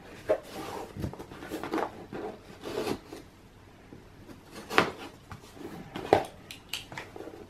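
Cardboard box being opened and handled by hand: cardboard rubbing and scraping, with a few sharp knocks.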